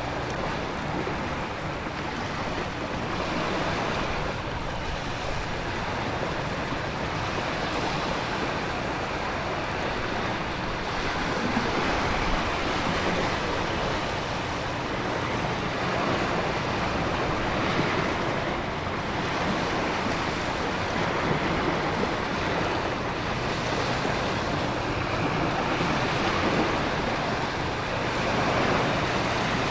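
Storm ambience of heavy rain and surging ocean surf: a dense, continuous rush of water that swells and eases every few seconds.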